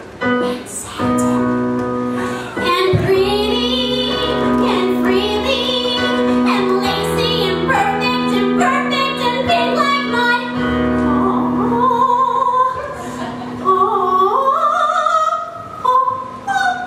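A woman singing a contemporary musical-theatre song live, accompanied on a keyboard piano, with long held notes. Her voice climbs higher in steps over the last few seconds.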